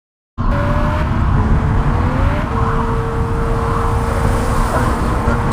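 Street traffic: car engines running with a steady rumble, cutting in abruptly about half a second in after dead silence, with a faint rising whine and then a held engine note.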